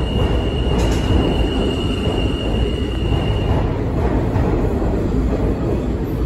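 New York City subway train departing the station, its cars running past with a loud, steady rumble of wheels on rail. A high steady whine rides over the rumble and stops about three and a half seconds in.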